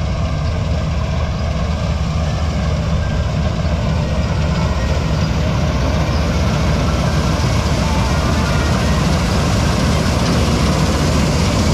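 Combine harvester running steadily while harvesting wheat: a heavy, even engine drone with a constant hiss of machinery above it.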